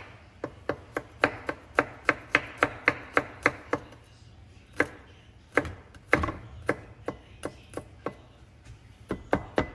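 Kitchen knife finely chopping fresh garlic on a cutting board. It starts as quick, even strikes, about four a second, then slows after about four seconds into scattered strikes with short pauses, and picks up again near the end.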